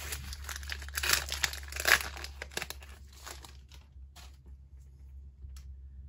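Foil wrapper of a Pokémon booster pack crinkling as it is torn open and the cards are pulled out, loudest about one and two seconds in. It dies away after about three and a half seconds to a few small clicks.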